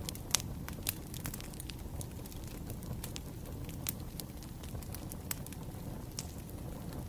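Campfire burning: a steady low rumble of flames with irregular sharp crackles and pops of burning wood, the loudest pop about a third of a second in.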